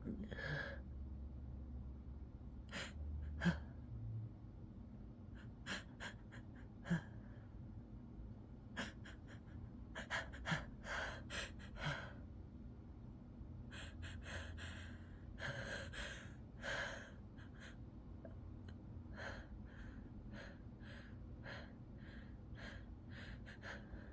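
A person's quick, irregular gasping breaths and sniffs, with a few sharper catches: the breathing of an itchy nose building toward a sneeze that does not come.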